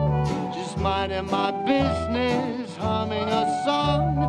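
Background music: a country-style song with a singing voice over bass and accompaniment.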